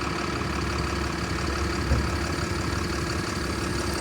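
Steady running hum of a vehicle, with a constant low drone and a steady mid-pitched tone, and a brief knock about two seconds in.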